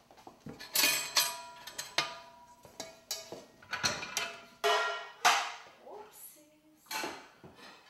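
Metal pots and pans clanking as a frying pan is lifted off a rack of hanging cookware: a run of irregular sharp knocks, some with a short metallic ring.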